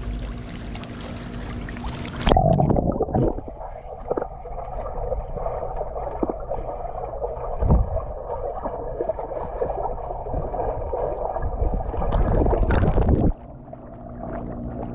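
Pool water churned by people skipping in chest-deep water, heard from just below the surface: a muffled rushing and sloshing with dull knocks, the strongest about eight seconds in. Clear open-air splashing at the start gives way to the muffled underwater sound after about two seconds, then the sound cuts back to a quieter open-air wash near the end.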